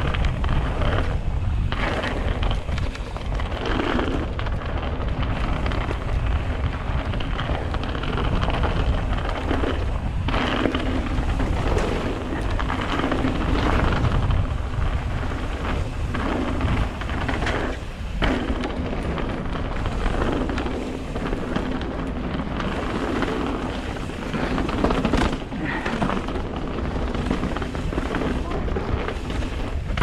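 Mountain bike descending a loose gravel and dirt trail at speed: heavy wind rumble on the microphone over the constant crunch and rattle of tyres on stones and the bike clattering over bumps.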